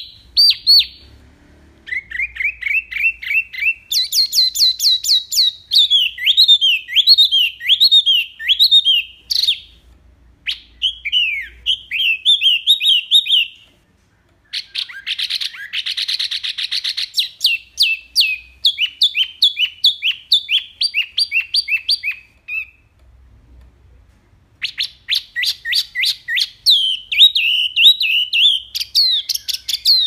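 Caged wambi mini songbird singing a loud, varied song of rapid chirps, trills and sweeping whistled notes, in long runs broken by short pauses about 14 and 23 seconds in.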